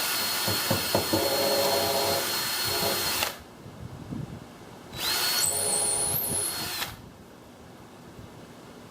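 Electric drill boring pilot holes for door hinges through thin plywood with a 1/8 inch bit. The motor whine rises as it spins up, runs about three seconds and stops, then a second shorter run of about two seconds follows.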